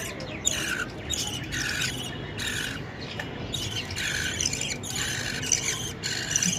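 Nestling birds giving harsh, rasping begging calls, repeated roughly once or twice a second.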